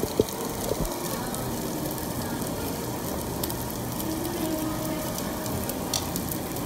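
Meat sizzling steadily on a barbecue grill, with a couple of sharp clicks in the first second.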